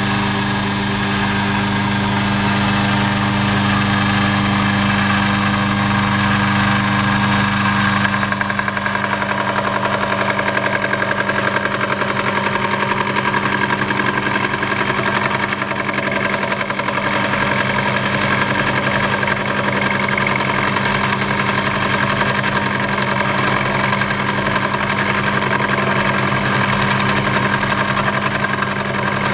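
EMCO Compact 5 milling attachment running steadily with a strong electric-motor hum while its cutter cuts gear teeth into a blank. The sound turns rougher about eight seconds in.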